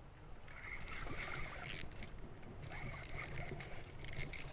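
Spinning reel being cranked close to the microphone: faint, uneven whirring and clicking that comes and goes in short stretches, with rustling of clothing and the camera mount.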